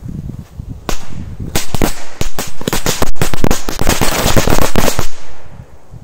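Strings of firecrackers packed into the hollow of a tree stump going off: a single sharp crack about a second in, then a rapid, uneven volley of cracks for about three and a half seconds, stopping abruptly.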